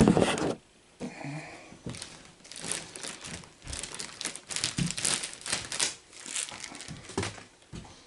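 Packing material being crumpled, crinkled and torn by hand while an air rifle is unpacked from its box. The sound is irregular rustling and crackling that begins with a louder burst.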